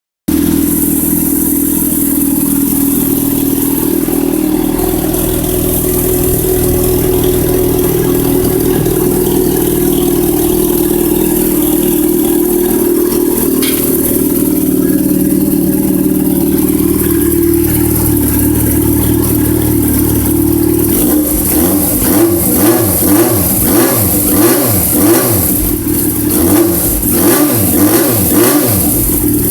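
Yamaha FZ6's 600 cc inline-four idling steadily with a loud, sporty exhaust note, then blipped repeatedly, revving up and dropping back about once a second from about two-thirds of the way in.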